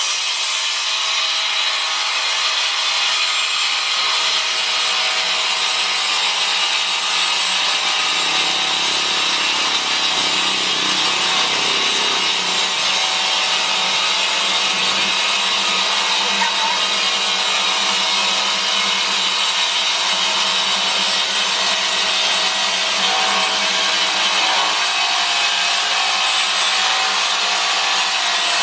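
Woodworking sawing machine cutting through ironwood: a steady, high-pitched cutting noise that runs without a break.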